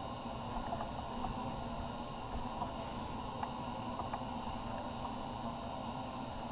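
Steady background hum and hiss with a thin, high, unchanging whine, broken by a few faint ticks and taps.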